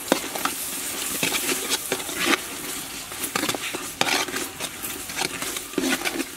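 Garlic, shallot, galangal, cinnamon and star anise sizzling in a bubbling dark sauce in a steel pot. A metal ladle stirs them, scraping and clinking against the pot several times.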